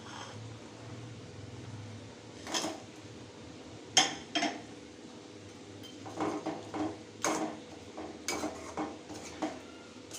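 Metal spoon knocking and scraping against a cooking pan in a series of sharp clinks as fried chicken pieces are added to boiling gravy and stirred in. The loudest knock comes about four seconds in.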